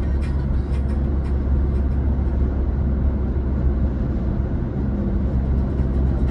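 Steady low rumble of road and engine noise inside an Audi A3's cabin at motorway speed. Music from the car stereo is faint, with a few beats in the first second or so.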